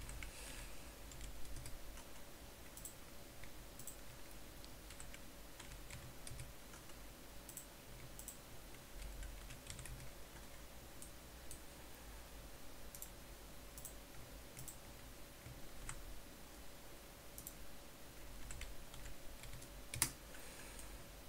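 Sparse, faint computer keyboard keystrokes and mouse clicks during mesh editing in Blender, with a sharper click near the end, over a faint steady electrical hum.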